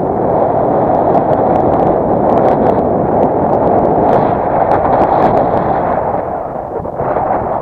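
Strong wind buffeting the microphone: a loud, steady rush of noise that eases briefly near the end.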